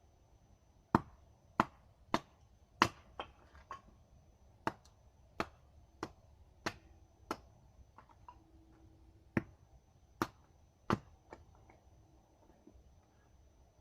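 A series of about fifteen sharp knocks, struck one at a time at an uneven pace, like a tool striking wood during building work, with a pause of about two seconds after the middle.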